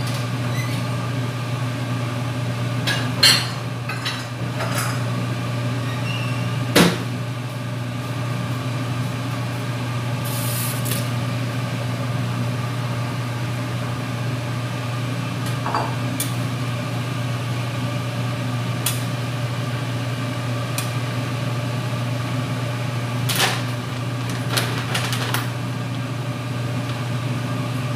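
A steady low hum in a kitchen, with a few sharp knocks and clinks of dishes and cookware being handled. The two loudest knocks come within the first several seconds, and a few more come about three quarters of the way through.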